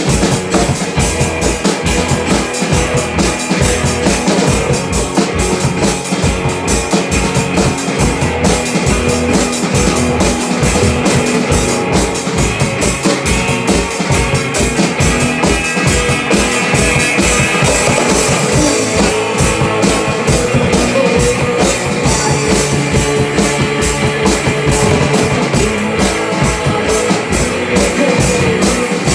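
A band rehearsing an original rock piece, with the drum kit keeping a steady beat under the rest of the band.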